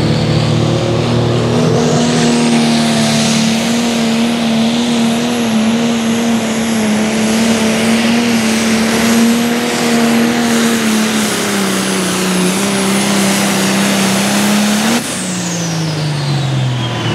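New Holland 8560 pulling tractor's turbocharged diesel engine running at full power under the load of the sled, with a high whine that rises in the first two seconds and then holds. About fifteen seconds in, the engine backs off and its pitch and the whine fall away together as the pull ends.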